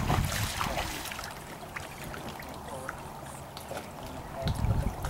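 Lake water lapping and trickling against a dock's edge. Wind gusts rumble on the microphone near the start and again near the end.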